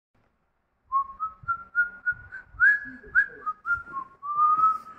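A person whistling a tune by mouth, starting about a second in: a quick run of short notes, each with a little upward slide at its start, then a longer held note near the end.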